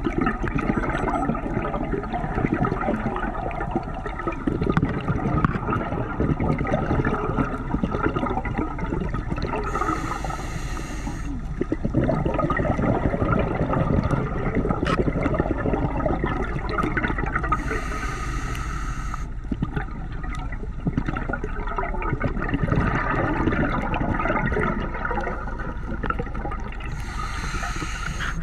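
Underwater scuba breathing through a regulator: a short hissing inhale three times, about eight seconds apart, and rumbling, gurgling exhaled bubbles between them, over a crackling background.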